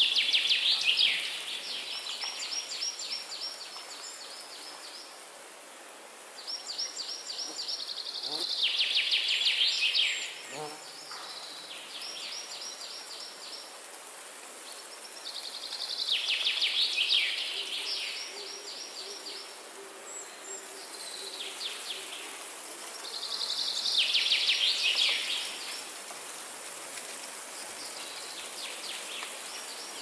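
Songbirds singing in a forest: four louder phrases of rapid trills, each about two seconds long and dropping in pitch toward the end, come roughly every eight seconds, with softer trills between them. A steady high hiss of background ambience runs underneath.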